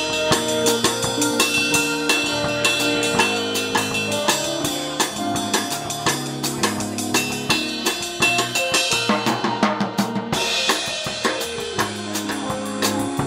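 Background music with a drum kit keeping a steady beat under sustained pitched instrument notes.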